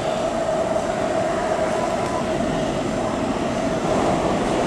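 MTR K-Train running in through the tunnel at high speed without stopping: steady rail rumble with a held tone, growing louder about four seconds in as it nears.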